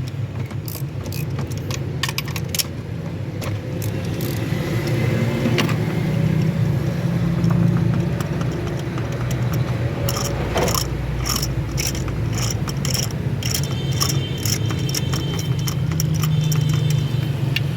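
Metal hand tools clinking and ticking against engine parts in repeated sharp clicks, busiest near the start and through the second half, over a steady low hum.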